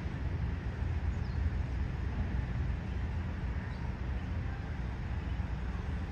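Steady low outdoor rumble with no distinct events, with a faint high chirp or two.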